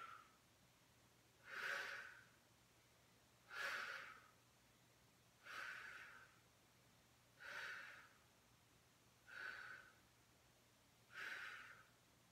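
A woman's sharp exhalations through the mouth during reverse crunches, one breath per rep. There are six short breaths, about two seconds apart.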